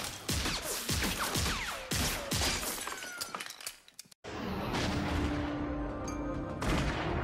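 A rapid burst of gunshots and shattering glass over film-score music. It cuts off abruptly about four seconds in, and sustained held-note music follows.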